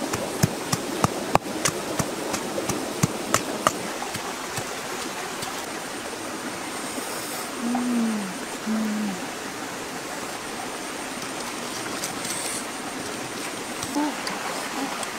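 Wood campfire crackling with sharp pops over a steady hiss, shrimp grilling on a skewer above it; the pops come thick for about four seconds, then thin out. About eight seconds in, two brief low falling tones.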